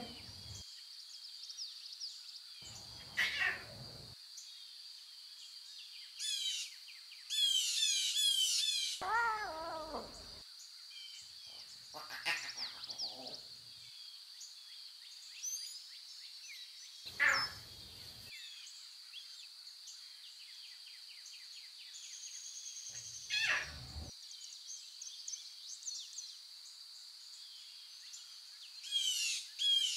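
Grassland ambience: a steady high insect drone with birds calling on and off, several times in quick runs of falling notes.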